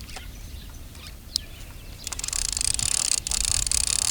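Baitcaster reel being cranked, winding untangled line back onto the spool with a fast, even high-pitched whir. The whir pauses briefly, then resumes about two seconds in.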